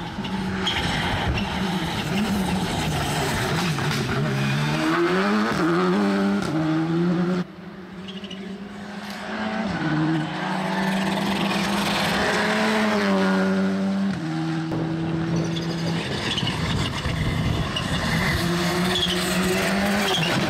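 Skoda Rally2 rally cars, turbocharged 1.6-litre four-cylinder engines, driven hard past on a wet lane, revving up and dropping back through gearshifts, with water spraying off the tyres. The sound breaks off abruptly about seven and a half seconds in, and another car's engine takes over.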